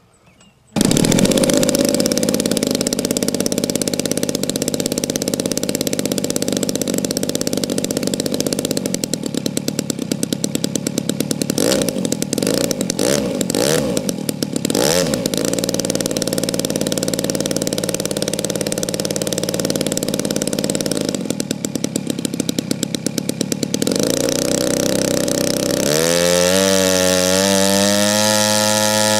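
Giant-scale RC AT-6 Texan model's gas engine starting by hand and running: it catches about a second in and runs steadily, with a few quick throttle blips in the middle, then revs up with a rising pitch near the end as it is run up on the ground.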